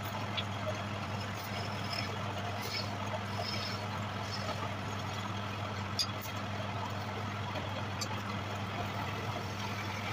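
Wood lathe's electric motor running steadily with a low hum, with a few light clicks and taps over it.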